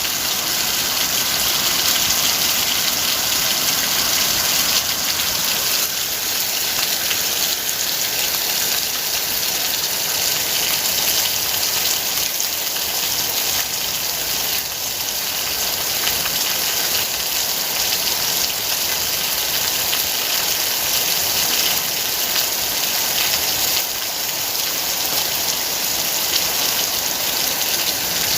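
Steady heavy rain, an even hiss of rainfall and running water.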